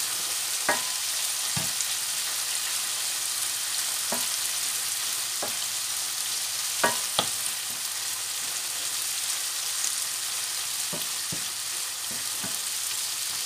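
Vegetable sauce sizzling steadily in a non-stick frying pan as it is stirred with a wooden spatula, which knocks and scrapes against the pan now and then.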